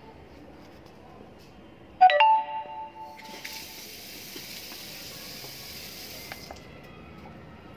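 A dog food bowl set down on a digital kitchen scale: one sudden strike about two seconds in that rings with several clear tones like a bell and fades within about a second. A steady hiss follows for about three seconds, then stops.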